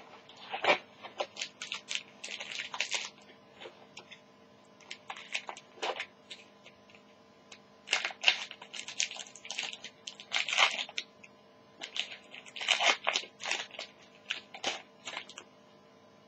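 Scissors snipping open a crinkly foil trading-card pack, and the wrapper crackling as it is handled. The sharp snips and crackles come in irregular clusters with short pauses between them.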